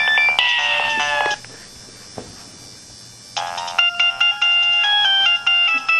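Mobile phone ringtones playing one after another: a beeping electronic melody ends in a falling glide about a second in, there is a short pause, then a new ringtone melody of quick stepped electronic tones starts about halfway through.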